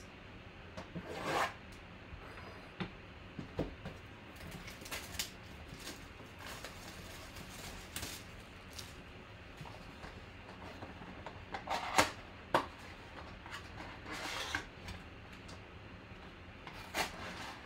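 Hands unwrapping and opening a 2020 Panini Select football mega box: scattered rustling, crinkling and scraping of plastic wrap and cardboard, with a sharp tap about twelve seconds in.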